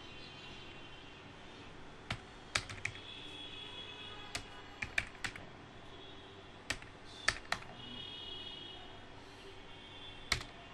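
Computer keyboard keystrokes while typing a web address: about a dozen sharp, irregular clicks in small clusters, over faint steady background noise.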